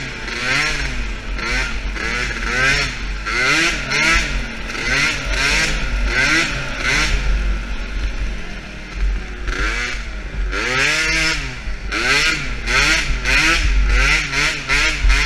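A DRR 50 youth quad's small engine revs up and down about once a second as the throttle goes on and off around the turns of a dirt track. Near the middle there is a longer steady stretch, then the revs drop low and climb again.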